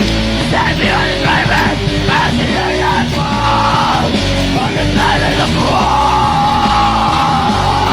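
Loud heavy rock music with yelled vocals. In the second half a voice holds one long note.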